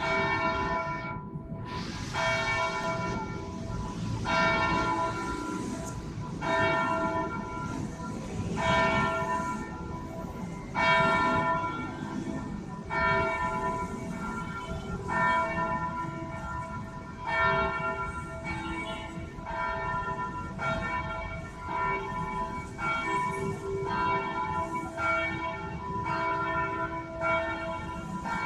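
Large church tenor bell tolling, struck about once every two seconds, each stroke ringing on into the next.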